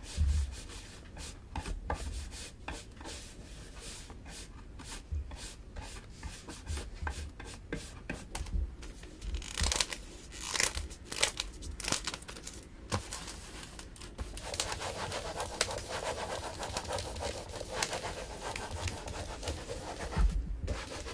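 Carving knife cutting into a cherry-wood printing block: a run of short scratching and scraping strokes, growing denser and steadier in the second half.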